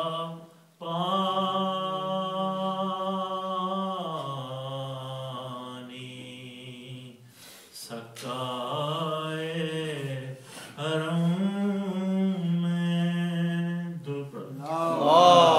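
A man's solo voice reciting a soz salam unaccompanied, drawing out long held notes that waver in pitch, with short breaks for breath between phrases.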